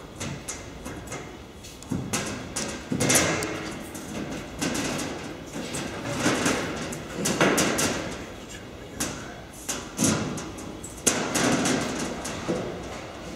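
Metalwork on a steam locomotive's sheet-steel valance: irregular knocks and bangs mixed with longer scraping sounds, in no steady rhythm.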